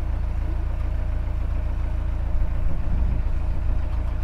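Narrowboat engine running steadily, a low, even hum as the boat cruises along the canal.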